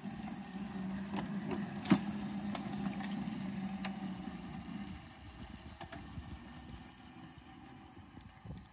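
A 7¼-inch-gauge miniature locomotive pulling a flatcar, running with a steady low hum. There is one sharp click about two seconds in. The hum stops about five seconds in, and the fainter running sound fades as the train moves away.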